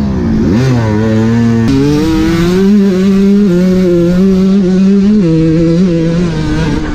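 Green Kawasaki dirt bike's engine running hard on a motocross lap. The revs drop sharply at the start and climb again, then hold with a few sudden steps in pitch.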